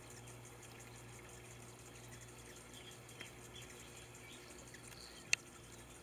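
Faint splashing of hummingbirds bathing in a shallow bird bath, with a few faint high chirps. A single sharp click about five seconds in is the loudest sound.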